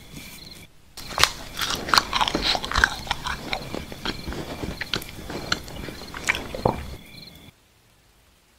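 Close-miked eating sounds: rapid bites and chewing, full of sharp clicks and smacks, stopping suddenly about a second before the end.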